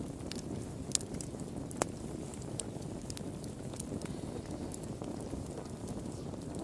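Wood fire burning in a fireplace: a steady low rumble of the flames with scattered crackles and snaps, and two sharper pops about one and two seconds in.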